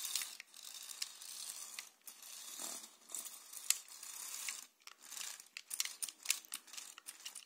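LEGO Technic 42095 remote-controlled stunt racer driving and turning on its tracks: its electric motors whir, and the tracks and plastic parts clatter. A steady hiss at first gives way to a run of sharp, irregular clicks.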